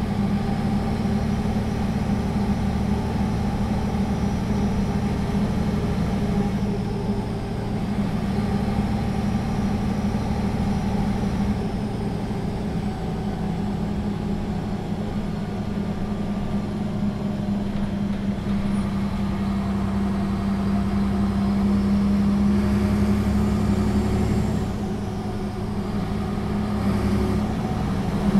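Solaris Urbino III 12 city bus under way, heard from on board: a steady engine hum with road noise. Near the end the sound dips briefly, then the engine picks up as the bus is accelerated hard in a kickdown.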